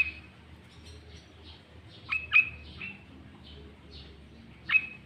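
Sooty-headed bulbul (kutilang) giving loud, sharp call notes: one at the start, a quick pair about two seconds in followed by another, and one near the end. Softer chirps run between them over a faint low hum.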